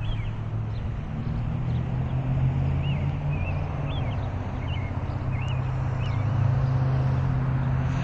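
An engine's steady low hum that grows louder about five seconds in, with short, high bird chirps every second or so over it.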